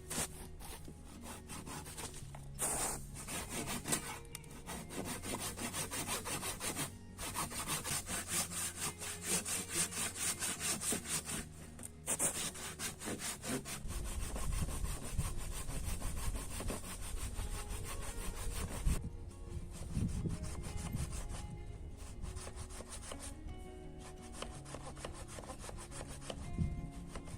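Hand saw cutting through wood in steady back-and-forth strokes, stopping briefly a couple of times, with soft background music underneath.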